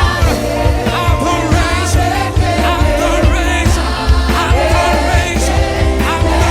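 Live gospel praise-and-worship music: voices singing over a band with a heavy bass line and regular drum hits.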